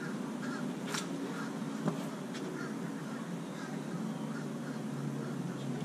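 A steady low mechanical drone, with a couple of sharp clicks about one and two seconds in.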